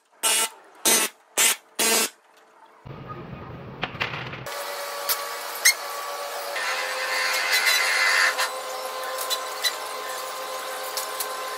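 Handheld drill run in four short bursts, drilling out rivets along a trailer's side rail. After a cut, a steady shop hum with a few sharp clicks.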